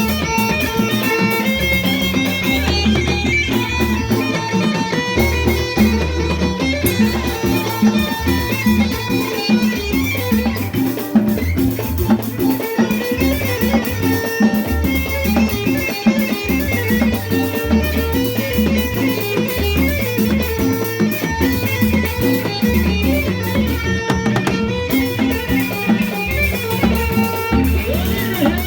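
Moroccan chaabi band playing live: string instruments over a steady drum beat.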